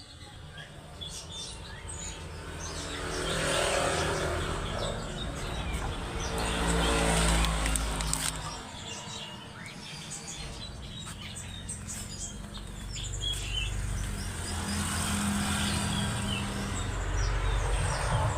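Small birds chirping and tweeting continuously, with motor vehicles passing twice, their engine noise swelling and fading.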